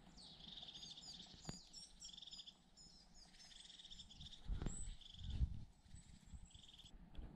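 Small songbirds calling in a pine forest: a string of rapid high trills and short chirps. A couple of low thumps come about halfway through.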